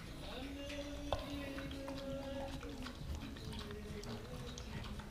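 A long drawn-out vocal tone held at a nearly even pitch for about two seconds, then a shorter one at a higher pitch, over light rustling and clicks.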